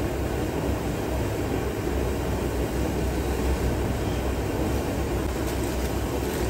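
High-pressure gas stove burner under a saucepan, burning with a steady low rushing noise that does not let up.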